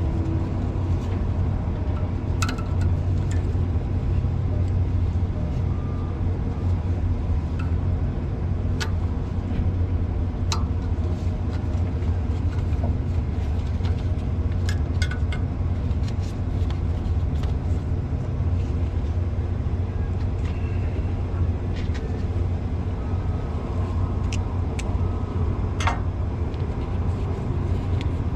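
A steady low mechanical hum runs on under scattered sharp metallic clicks and taps of hand tools working on the DEF injector retainer.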